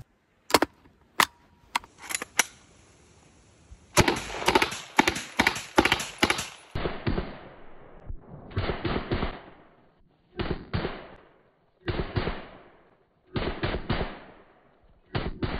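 PPD-40 submachine gun firing 7.62×25mm Tokarev: four single shots, then about three seconds of rapid automatic fire, then five short bursts.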